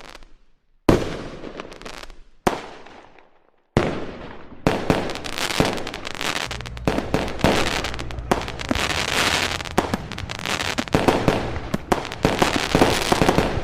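Fireworks going off. Three separate bangs, each fading away, come in the first four seconds, then a dense, continuous barrage of crackling bangs and pops sets in.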